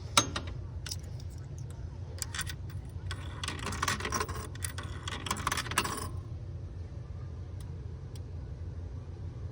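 Coins being fed into a payphone's coin slot: a run of metallic clicks and clinks for about six seconds, after which they stop and only a low steady background rumble remains.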